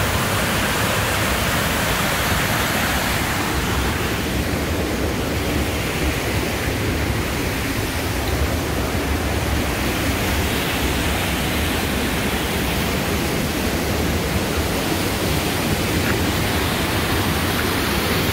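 Waterfall pouring through a narrow rock gorge: a steady, loud rush of falling water.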